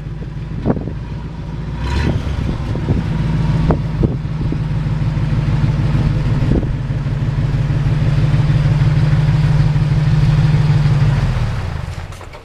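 Gasoline engine of a 1967 Chevrolet C50 grain truck idling steadily, growing louder toward the front of the truck, then falling away near the end. A few sharp clicks and knocks come in the first few seconds.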